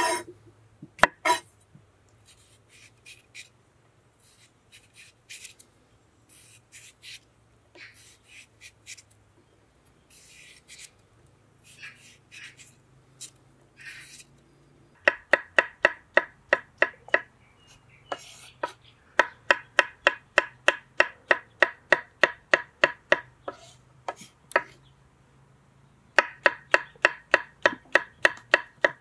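Kitchen knife on cucumber: first light, scattered scraping strokes as the cucumber is peeled in the hand. From about halfway through come three runs of quick, even knocks of the blade chopping through cucumber onto a wooden cutting board, about four a second.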